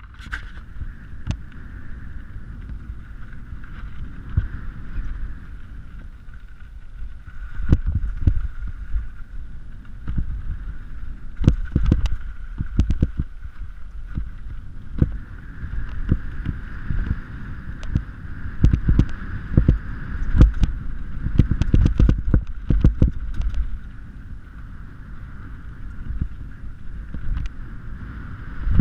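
A mountain bike rolling fast over a bumpy dirt forest trail, heard through a bike- or helmet-mounted action camera: a steady low wind rumble on the microphone, broken by frequent clatters and knocks as the bike hits roots and bumps, heaviest in the middle and easing off near the end.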